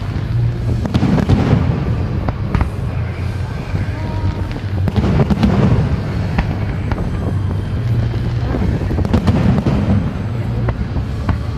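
Fireworks display: a running series of shell bursts and crackles, with heavier volleys of bangs about a second in, around five seconds and near nine seconds, over a continuous low rumble.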